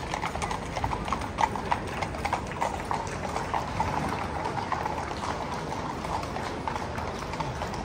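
Hooves of several horses walking on a paved street, a steady irregular clip-clop of many overlapping strikes.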